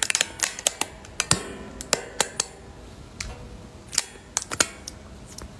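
Sharp taps on a smartphone: a quick, irregular run of clicks over the first two and a half seconds, then a few more about four seconds in.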